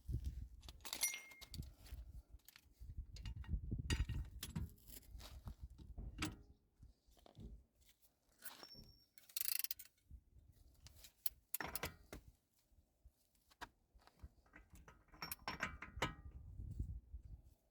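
Hand tools and metal parts clinking and knocking at irregular intervals, with scattered sharp clicks, as a car's front wheel hub and brake are worked on.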